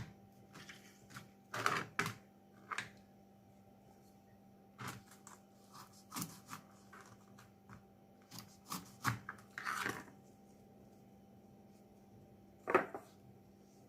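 Irregular knocks, taps and handling noises as cut, salted lemons are packed and pressed down into a jar, with one louder knock near the end.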